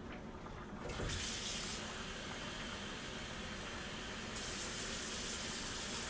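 Kitchen faucet turned on about a second in, water running steadily into a bowl to mix with flour for gravy.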